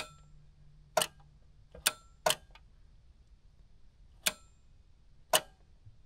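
Six sharp, unevenly spaced clicks from a battery load tester's momentary rocker switch and its added 120 A relay as the load is switched on and off. The relay, not the switch, carries the 100 A load current.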